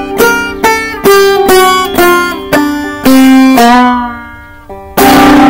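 Banjo played loudly into a Chromebook's built-in microphone, so overdriven and distorted that it sounds electric, in a modal tuning. Notes are picked about two a second, a sliding phrase fades out after about three seconds, and one loud chord is struck near the end and rings on.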